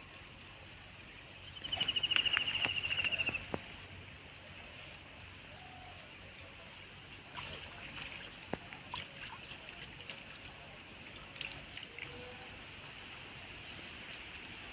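A high, rapidly trilled animal call of about two seconds, falling slightly in pitch, begins about two seconds in over a steady faint hiss. Scattered small taps and water splashes follow later.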